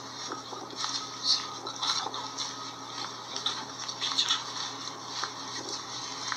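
A Blackview BV6000 smartphone's small built-in speaker playing back an outdoor video recorded with the phone's microphone gain raised in the engineering menu: a thin, hissy sound from the recording, now plainly audible.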